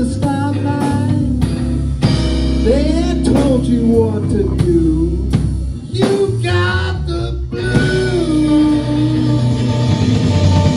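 Live blues-rock band: electric guitar playing a lead line with bent, sliding notes over bass guitar and a drum kit.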